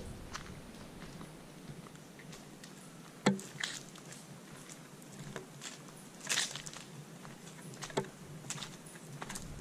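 Footsteps on a dirt and gravel path: a handful of scattered crunches and knocks over a faint steady hiss.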